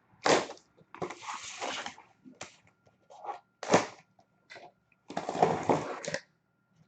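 A sealed cardboard case of hockey card boxes being opened: two longer stretches of tearing and rustling as the seal and packaging are pulled apart, with shorter scrapes and a sharp snap about halfway through.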